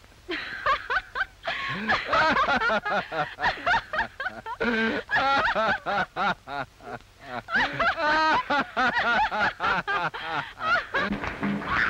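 A woman laughing in long, repeated bouts of giggling laughter. Music comes in near the end.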